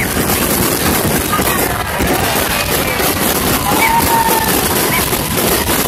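Dense, continuous fireworks barrage: overlapping shell bursts and crackling with no gap between them, with several short thin whistles over the top.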